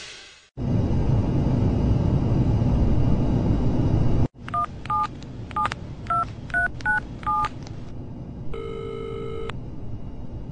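A loud steady rushing noise that cuts off suddenly about four seconds in, then a phone being dialed: about eight short touch-tone (DTMF) keypad beeps, followed by a ringback tone, the line ringing at the other end.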